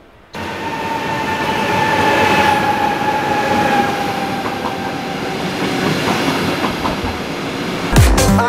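Double-decker electric passenger train pulling in alongside the platform, its wheels and running gear loud and close. A high whine slowly falls in pitch as it slows. A loud knock comes near the end.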